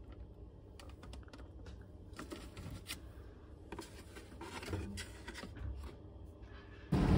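Scattered soft clicks and rustles of plastic food containers and packaging being handled on refrigerator shelves. Near the end it cuts abruptly to louder, steady street noise.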